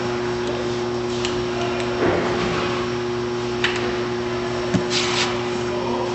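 Steady hum of a Wexxar BEL 252 packaging machine running, with a few sharp clicks and short rattles as its crank handle and roller guide are adjusted by hand.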